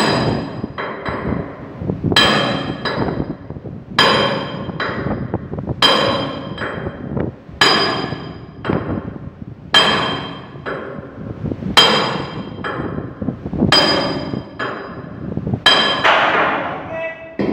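Hammer striking steel: a heavy, ringing blow about every two seconds, nine in all, with lighter taps between them, as a corroded winch brake joint is knocked apart for reconditioning.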